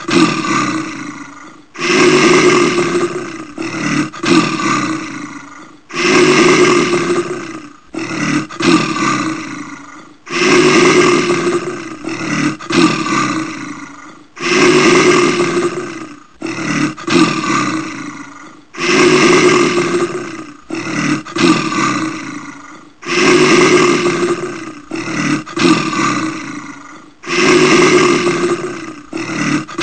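Brown bear roaring: a long roar followed by a few shorter ones, the same pattern repeating about every four seconds.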